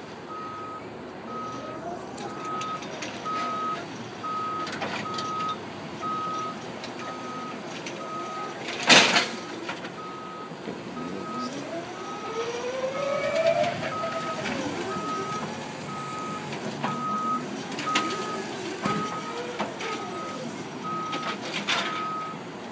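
Stand-up electric forklift's warning beeper sounding steady, even beeps, a little under two a second, while its drive motor whines up and down in pitch as it manoeuvres. A single sharp knock about nine seconds in is the loudest sound.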